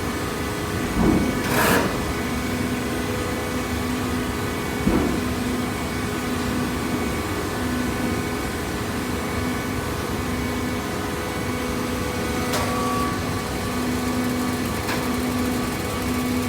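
Horizontal hydraulic cardboard baler running: a steady machine hum with a low tone pulsing on and off about once a second, and a few sharp knocks, twice in the first two seconds, once near five seconds and once past twelve.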